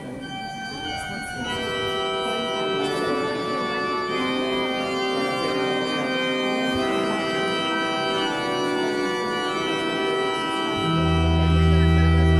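Cathedral organ playing slow held chords, the notes changing every second or two. About eleven seconds in, a loud low bass note enters under the chord and the whole sound swells.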